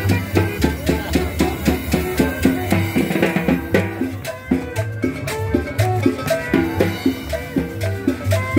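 Dance music from a band (combo), with a steady drum-kit beat, a pulsing bass line and a melody over it.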